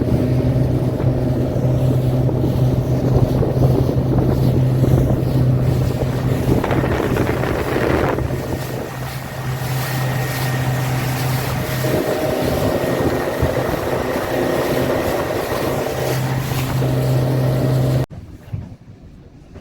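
Motorboat engine running steadily at planing speed, with wind and rushing water. The engine note fades for a few seconds in the middle and then comes back, and the sound cuts off suddenly near the end.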